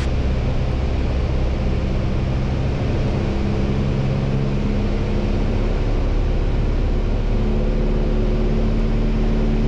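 Piper PA-28's piston engine and propeller droning steadily, heard inside the cockpit during a practice clean stall. The engine note shifts about halfway through and picks up slightly near the end as a little power is added for the stall recovery.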